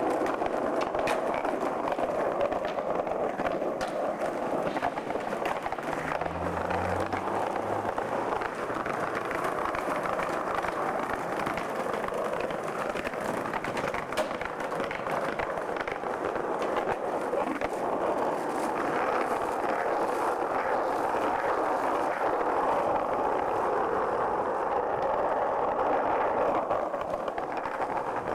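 Skateboard wheels rolling steadily over pavement, a continuous gritty noise with a few faint clicks.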